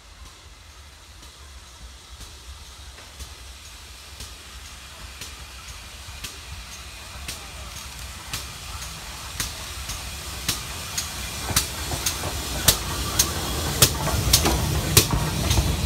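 GWR Hall class 4-6-0 steam locomotive approaching and passing with its train, the hiss of steam and the rumble of the engine growing steadily louder. Sharp regular clicks come about once a second at first and twice as often near the end, as the engine draws level.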